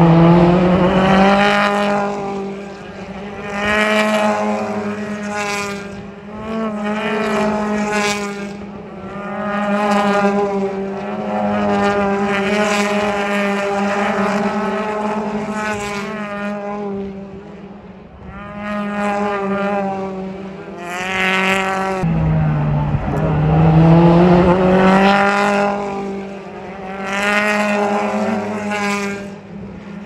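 British Touring Cars' turbocharged 2-litre four-cylinder engines passing one after another through a chicane. Each engine note falls as the car brakes, then climbs as it accelerates away, in waves every few seconds.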